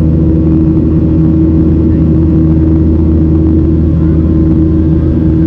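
Steady in-flight cabin drone of a Boeing 737-700, its CFM56-7B turbofan engines and airflow heard from inside the cabin: a constant low hum with a held mid-pitched tone over it.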